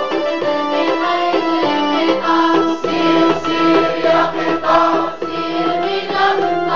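Music of an Arabic children's song (nasheed) about a train: keyboard accompaniment with singing.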